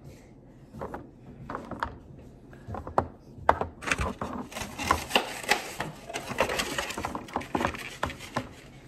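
Eggs being set one by one into an egg storage container: an irregular run of light clicks and knocks, sparse at first and growing busy about halfway through.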